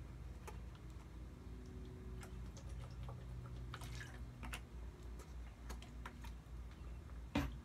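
Scattered light clicks and ticks of handling, over a steady low hum, with one sharper, louder click near the end.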